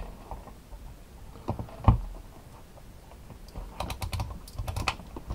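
Clicks and knocks of a Fluke digital multimeter being handled, as a type K thermocouple probe is pushed into its input jacks, with one firm knock about two seconds in. Near the end comes a quick run of clicks as the rotary selector dial is turned.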